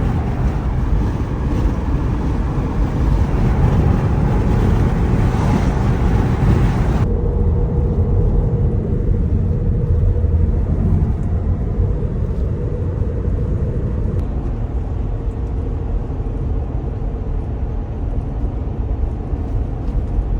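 Road and tyre noise of a Tesla being driven: a steady low rumble with no engine sound. About seven seconds in, the higher hiss drops away abruptly, leaving the rumble and a faint steady hum.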